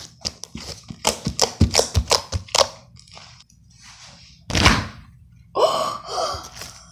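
Butter slime being squished and poked for ASMR: a quick run of sharp pops and clicks for about two and a half seconds, then one loud squelching thump about four and a half seconds in. A short wavering, pitched sound follows near the end.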